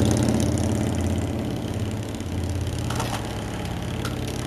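Diesel engine of a hydraulic excavator running steadily as it works on a building, getting somewhat quieter, with two sharp knocks about three and four seconds in.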